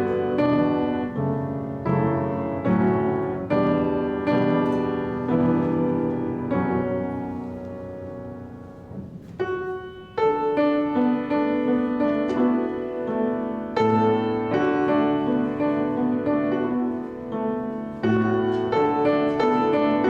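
Piano playing a slow piece in struck, ringing chords; the music thins out and fades about seven seconds in, then picks up again at full strength about ten seconds in.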